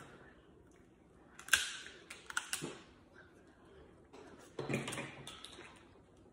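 Snow crab leg shells cracking and snapping as they are broken open by hand, a few sharp cracks and clicks: the loudest about a second and a half in, more around two and a half seconds, and another near five seconds.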